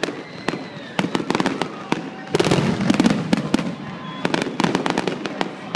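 Fireworks going off: an irregular string of sharp cracks and pops, thickening into a dense flurry of crackling about two and a half seconds in.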